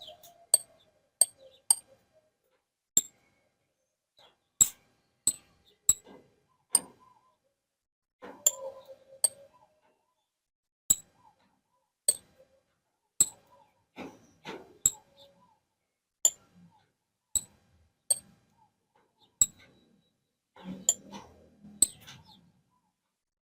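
Sharp, short clinks with a brief high ring, coming irregularly about once a second, a few of them in quick pairs.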